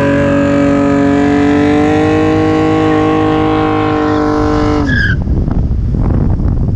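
BMW E36's M52 inline-six revving hard and held at high revs, a loud steady engine note that climbs slightly about two seconds in, then falls away about five seconds in as the throttle is lifted. Road and wind noise fill the rest.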